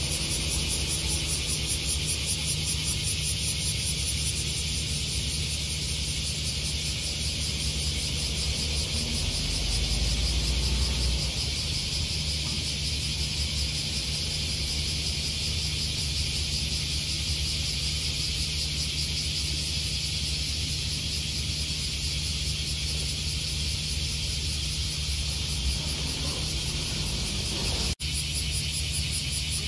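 Isuzu city bus's diesel engine idling at a stop, a steady low hum with a brief swell of low rumble about ten seconds in, under the steady high buzzing of cicadas.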